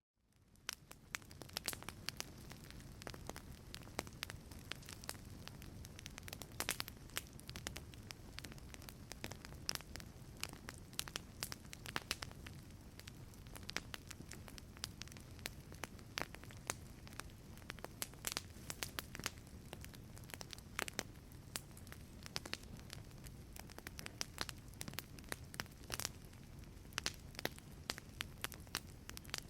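Wood fire crackling in a fireplace: irregular sharp pops and snaps over a steady low rumble of burning logs, fading up from silence in the first second.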